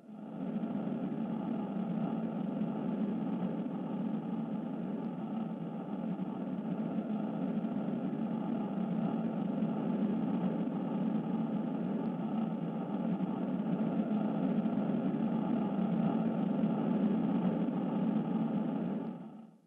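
Steady low rumbling drone laid under the animation as a sound bed. It fades in at the start and fades out near the end.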